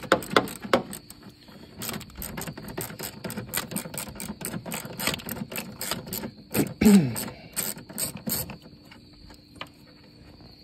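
Hand ratchet clicking in quick runs of strokes as a small bolt, about 8 mm, is backed out. A brief falling tone about seven seconds in is the loudest moment.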